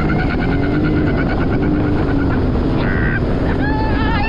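Jet ski engine running under way over water, loud and steady, its pitch slowly rising and falling.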